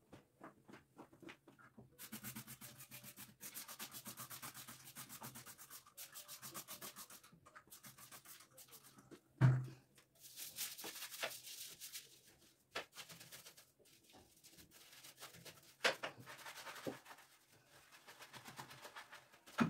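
Hand scrubbing of a bathroom washbasin: fast back-and-forth rubbing strokes, broken by a few knocks, the loudest about halfway through.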